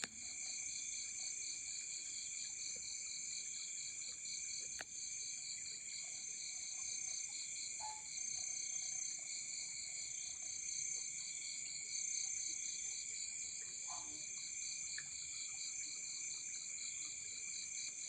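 Chorus of insects, cricket-like, several steady high-pitched trills at once, one of them pulsing rapidly. A single faint click sounds about five seconds in.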